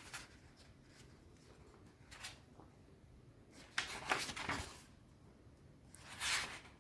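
Faint paper rustles of a hardback book being handled and its pages leafed through, in a few short bursts, the clearest about four seconds in and another near the end.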